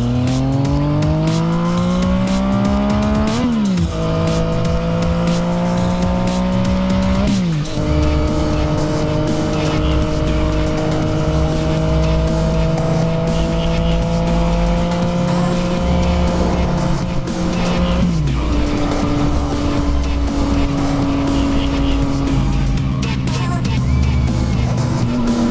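Yamaha FZ-09 motorcycle's inline three-cylinder engine pulling through the gears from the rider's seat: the pitch rises, drops sharply at upshifts about three and a half and seven and a half seconds in, then holds fairly steady at cruising speed, with one more shift near eighteen seconds.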